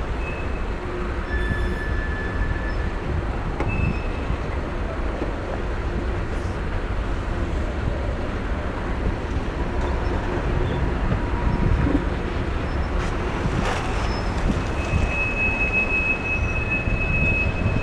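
Freight train cars rolling past at close range: a steady rumble of steel wheels on rail. A short high wheel squeal sounds about two seconds in, and a longer steady squeal holds over the last three seconds.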